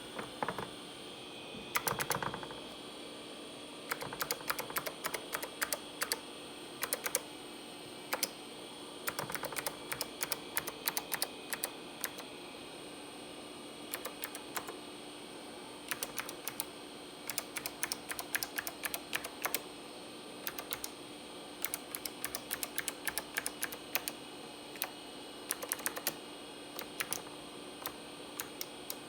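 Typing on a Leading Edge DC-3014 vintage mechanical keyboard: its clicky key switches clack in quick runs of keystrokes with short pauses between them, over a faint steady hum.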